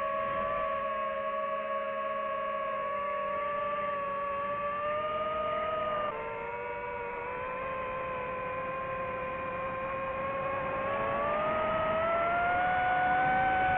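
DJI FPV quadcopter's motors and propellers whining steadily, the pitch dipping about six seconds in and then rising over the last few seconds.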